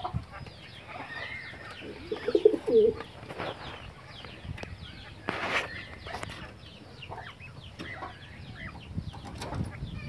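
Domestic pigeon cooing briefly, a low warble about two and a half seconds in, over constant quick, high chirping from small birds. A short loud flutter of wings about five and a half seconds in.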